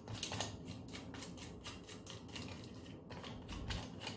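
Rapid, light clicking, several clicks a second, as the loosened bar nuts on a Husqvarna 572XP chainsaw's clutch cover are turned off by hand.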